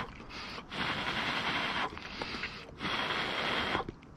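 A person blowing on a piece of hot stir-fried beef held in chopsticks to cool it, in several long breaths with short pauses between them.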